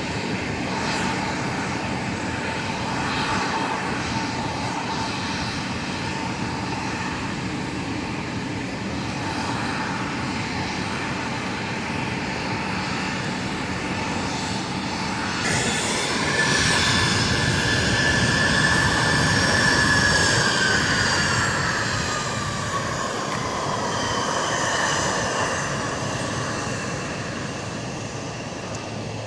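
Twin rear-mounted turbofan engines of a CRJ regional jet taxiing, a steady rumble with a high whine. About halfway through, the jet turns away; the sound swells and the whine holds, then falls steadily in pitch before the sound eases off near the end.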